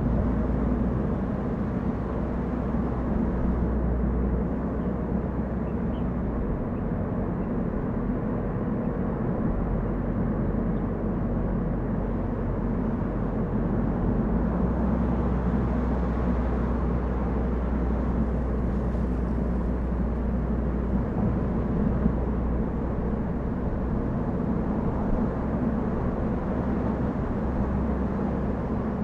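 A car driving at a steady pace, its engine and tyre-on-road noise making a continuous low drone.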